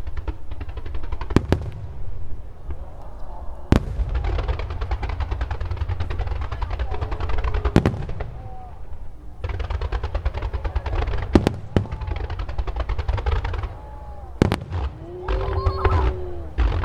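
Fireworks display: loud booms of aerial shells bursting every few seconds, with long runs of rapid crackling between them.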